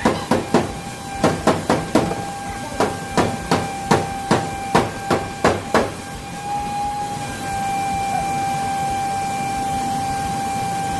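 Quick hammer blows on a pickup truck's sheet-metal bed side, tapping out dents, about sixteen sharp ringing strikes in small clusters over the first six seconds. A steady high-pitched hum runs underneath and carries on after the hammering stops.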